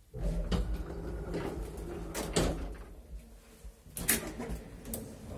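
Insubria-Atlas elevator doors opening at a landing: a low rumble starts suddenly, with sharp clunks and clicks of the door mechanism about two seconds in and again about four seconds in.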